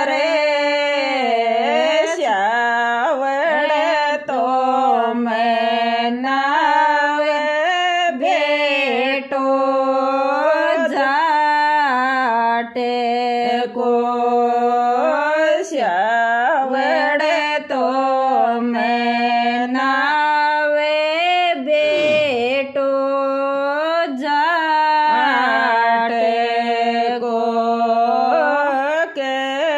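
A woman singing a Rajasthani Tejaji devotional folk song without accompaniment, in long held and ornamented notes that bend in pitch.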